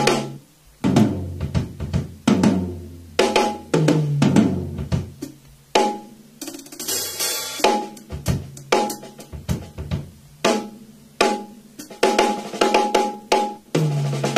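Acoustic drum kit played in a solo: spaced snare hits with a ringing tone, low tom and bass drum strokes, and a cymbal crash about seven seconds in.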